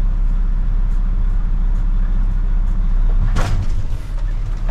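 Mack Anthem semi truck's diesel engine running steadily, heard from inside the cab. About three and a half seconds in there is a short hiss of released air.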